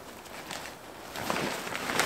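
Heavy-duty waterproof tarp rustling and crinkling as it is gathered up and lifted by hand, getting louder toward the end.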